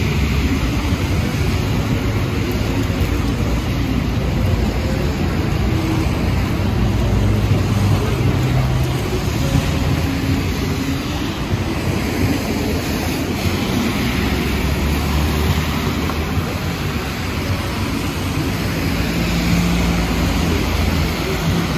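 Steady traffic noise of a busy city avenue: cars and buses passing on a wet, slushy road, with low engine hums coming and going.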